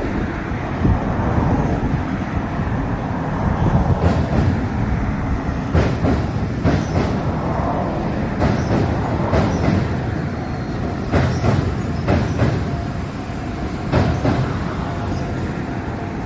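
Meitetsu electric commuter train crossing a steel truss railway bridge: a steady low rumble with irregular sharp clacks as the wheels cross rail joints, loudest from about four to fourteen seconds in.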